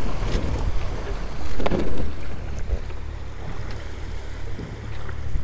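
Wind buffeting the microphone and waves washing against a boat at sea, a steady low rumble with a louder burst of noise about a second and a half in.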